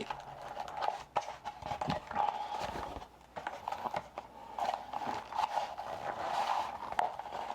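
Cardboard hobby box and card packs being handled: irregular taps, clicks and rustles as the box is opened.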